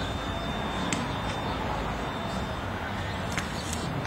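Steady city street ambience: a low rumble of distant traffic, with a few faint clicks.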